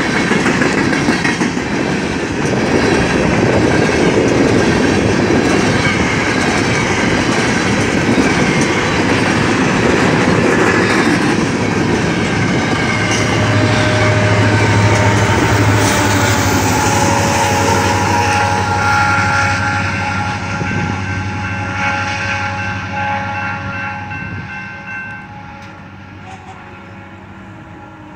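A fast BNSF coal train passing over a grade crossing, its wheels clattering over the rails and crossing with a heavy steady rumble. The rumble fades away after about eighteen seconds as the train moves off. In the second half a steady multi-note train horn sounds from a distance and stops near the end.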